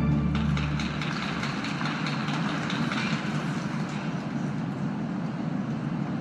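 Audience applauding at the end of a figure skating program, with the last low note of the program music dying away in the first second.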